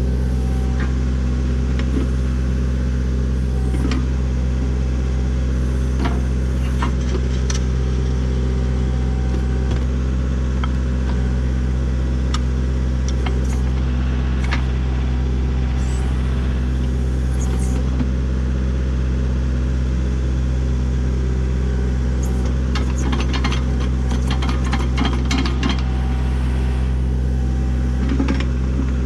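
Tractor engine running at a steady speed, with scattered metal clanks and knocks, a cluster of them late on.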